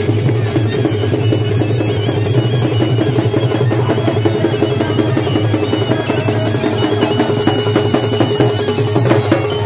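Loud, fast drumming with music, a dense and unbroken run of drum strokes.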